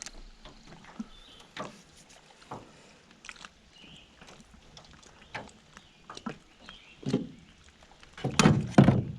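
Scattered knocks and clicks of paddle and gear against a small john boat's hull, with a louder clatter about eight seconds in.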